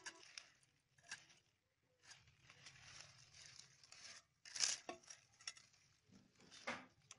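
Spinach stems being cut and snapped against a bonti's fixed curved blade, in scattered sharp cuts with leaves rustling between them; the loudest cut comes about halfway through, another near the end.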